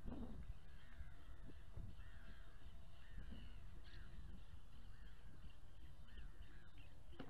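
A bird calling over and over, a harsh arched call roughly once a second, over a low steady rumble.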